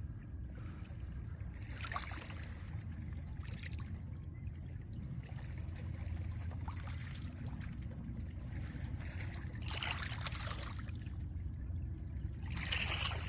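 Small lake waves washing gently onto a pebble beach, a hissing wash every two to three seconds with the biggest ones toward the end, over a steady low rumble of wind.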